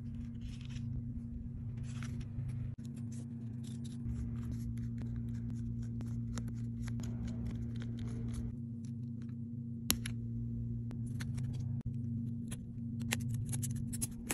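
Small irregular clicks, taps and scrapes of repair tools on the parts and screws of a Samsung Galaxy Note 10+ being taken apart, over a steady low hum. One sharper click comes about ten seconds in.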